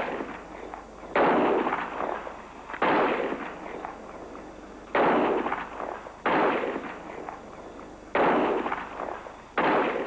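Pistol shots fired one after another, six of them at uneven gaps of about one and a half to two seconds. Each shot has a long echoing tail.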